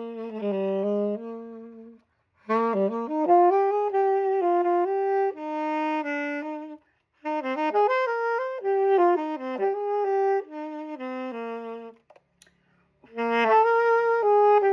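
A saxophone playing a melody in several phrases, with short breaths between them about two, seven and twelve seconds in, as a play test of the instrument.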